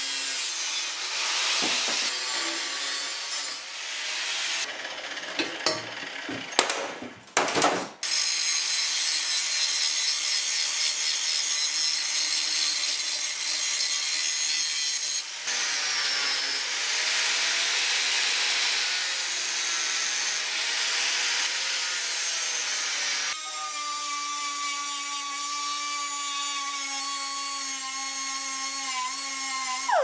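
Angle grinder running under load against a metal bracket, grinding away material for clearance so the bracket can sit flat. A steady grinding hiss with a whine, unsteady with dips and spikes in the first several seconds.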